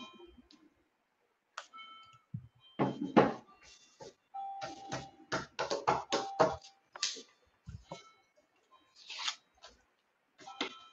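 A quick run of small clicks and knocks, like objects being handled on a desk, with a few short beep-like tones mixed in.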